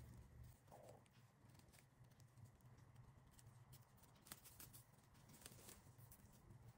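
Near silence: faint scratchy rustles and a few soft ticks as a crochet hook draws a paper-yarn tail through the stitches of a crocheted paper-yarn bag, over a low steady hum.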